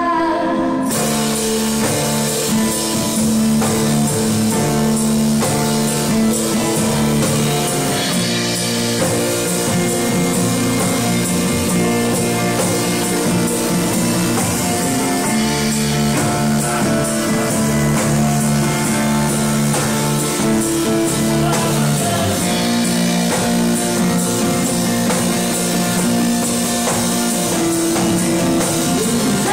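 Live acoustic band music: acoustic guitar and plucked upright double bass playing steadily, with a woman singing into a microphone in parts.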